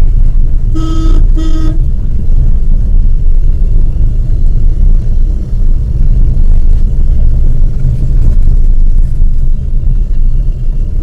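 A Maruti WagonR driving, a loud steady low rumble throughout, with two short toots of a car horn about a second in.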